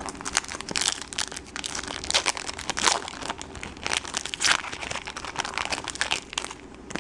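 Foil wrapper of a trading-card pack crinkling in the hands as it is torn open, a dense run of irregular crackles.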